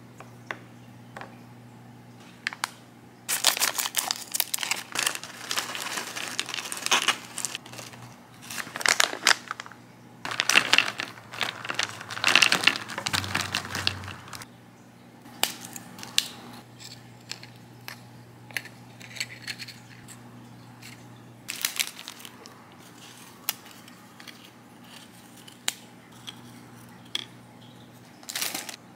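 Plastic snack bag crinkling while round chocolate candies are poured out and clatter onto a wooden board. Dense rustling and clicking through the first half, then scattered small taps as pieces are set down.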